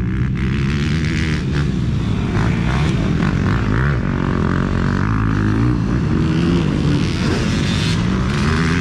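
A pack of motocross dirt bikes racing, several engines revving at once, their pitch rising and falling and overlapping as the riders work the throttle through the corners.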